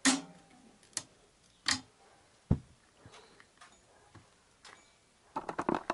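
Sharp metallic clicks of a screwdriver working a motorcycle centre-stand return spring onto its hook, with a deeper knock about two and a half seconds in and a quick flurry of clicks near the end.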